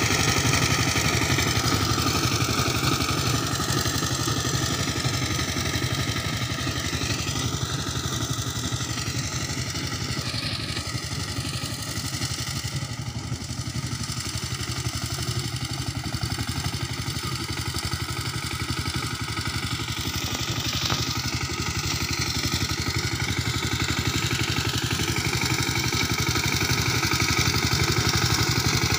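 Two-wheel power tiller's single-cylinder diesel engine running steadily under way. It grows fainter in the middle as the tiller moves off across the field and louder again near the end as it comes back.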